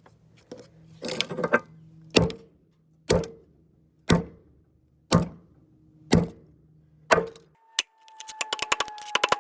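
Sharp blows at about one a second, each with a short ring, as a broken computer mouse is smashed. About two-thirds of the way in they give way to a fast run of rattling clicks over a faint, slowly falling tone.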